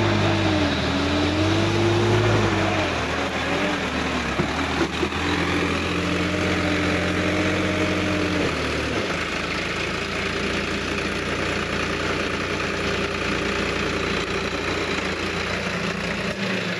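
Sonalika DI-50 RX tractor's diesel engine running under load, its pitch rising and falling over the first few seconds and then holding steady. About nine seconds in the deeper note drops away and a steadier, higher hum carries on.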